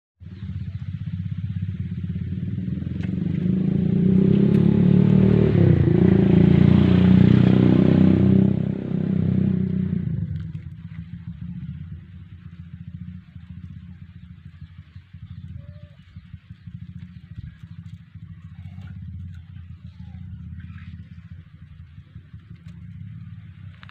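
A motor vehicle's engine passes close by. It grows louder over the first few seconds, is loudest around six to eight seconds in, and fades by about ten seconds, leaving a steady low rumble.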